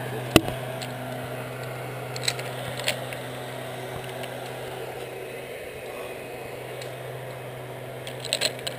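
Metal clicks of zipline gear, a pulley trolley and carabiners being handled and clipped onto the steel cable: one sharp click just after the start, a couple more two to three seconds in, and a quick cluster near the end, over a steady low hum.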